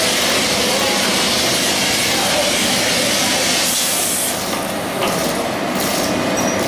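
Large open forge fire heating a steel plate for flanging, a steady rushing hiss of flame that thins about five seconds in.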